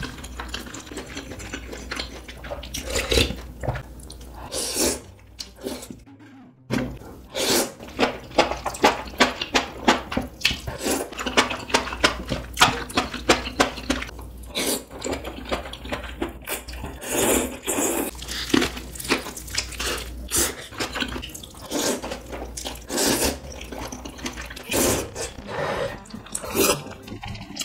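Close-miked eating sounds: wet chewing and slurping of spicy hot pot noodles and seafood, a quick run of short wet smacks and clicks with a brief pause about six seconds in.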